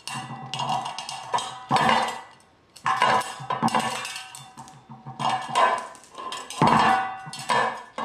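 Hard household objects clattering and knocking in short bursts, about one a second.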